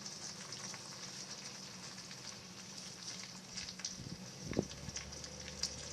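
Faint crackling hiss with scattered small clicks and one sharper knock about four and a half seconds in: hands handling parts on a motorcycle.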